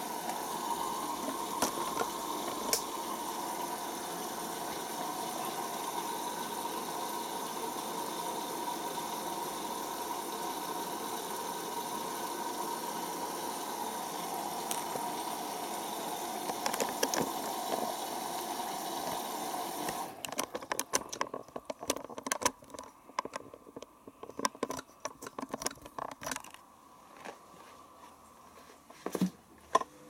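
Hoover Optima front-loading washing machine filling at the start of its wash: a steady hiss of water rushing in through the inlet valve, with a faint whine. It cuts off abruptly about twenty seconds in, leaving scattered soft clicks and knocks from the machine.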